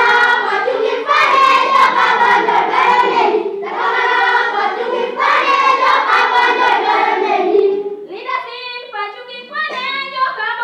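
A group of girls and women singing together in unison, in two loud phrases. Near the end a single voice carries on alone, quieter.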